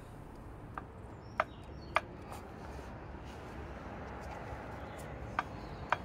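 A few short, sharp clicks over a low steady background noise: two about one and a half and two seconds in, and two more near the end.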